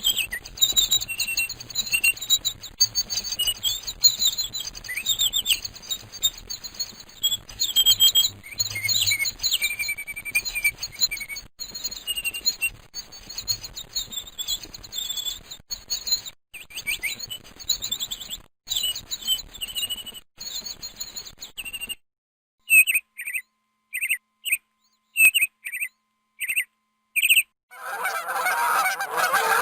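Songbirds chirping and singing in a dense, overlapping chorus, which cuts off sharply. A single bird then gives short, high calls about twice a second. Near the end, goose honking begins.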